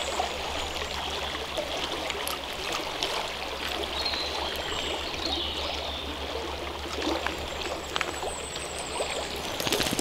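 Shallow stream running and trickling over a stony riverbed, a steady wash of water, with a few sharp clicks near the end.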